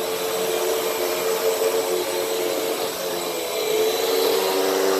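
Hoover WindTunnel bagless upright vacuum running on a rug with a steady motor hum and airflow rush, its pitch shifting slightly about three and a half seconds in as it is pushed across the pile.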